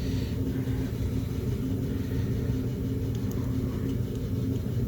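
Steady low mechanical rumble with a faint hum, unchanging throughout, and a few faint light ticks.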